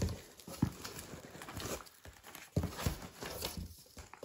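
Cardboard box being handled as its flaps are folded open: a few irregular dull knocks on the cardboard, the loudest at the start and about two and a half seconds in, with light rustling between them.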